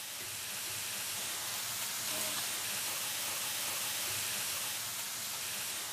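Slices of hanwoo beef sizzling on a hot tabletop grill plate: a steady, even hiss much like the sound of rain.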